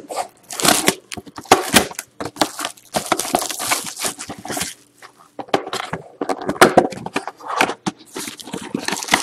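Clear plastic shrink-wrap on a trading-card hobby box crinkling and tearing in irregular bursts as it is stripped off. Near the end come the rustle and scrape of foil card packs being pulled out of the cardboard box.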